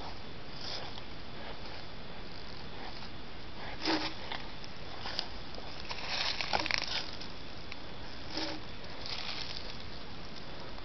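An animal's fur brushing against a trail camera: a handful of short scratchy rustles, the busiest cluster about six to seven seconds in, over the camera's steady hiss.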